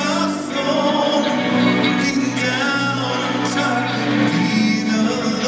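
Live rock band playing, with a male lead singer's voice over sustained chords and cymbals, heard from the audience.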